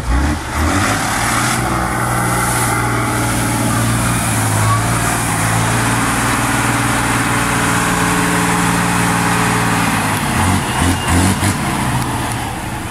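Diesel engine of a Tatra 815 trial truck running hard under load as the truck ploughs through a muddy pond, with water splashing around it. The engine note holds steady for most of the time and turns uneven with a few surges near the end.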